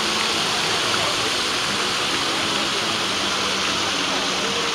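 Ring of fountain jets splashing steadily into a pool of water: an even rushing and splashing at a constant level.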